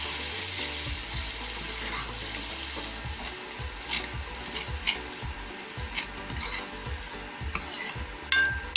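Mutton and ground spices frying in oil in a pan, a steady sizzle that is strongest in the first few seconds and then thins, while a spoon stirs and scrapes the pan. There are short scraping strokes in the second half and a sharp metal clink of the spoon near the end.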